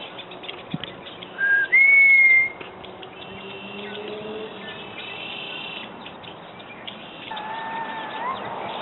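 Red-winged blackbirds singing: a short whistle, then a loud clear held whistled note about two seconds in, faint trills after it, and a lower whistled note that rises at its end near the end.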